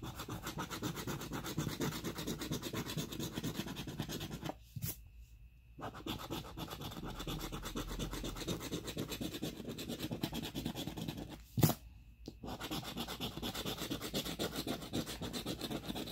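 Half-dollar coin scraping the latex coating off a lottery scratch-off ticket in quick back-and-forth strokes. The scraping stops twice, about 4.5 and 11.5 seconds in, each time with a click, the second one sharp and the loudest sound.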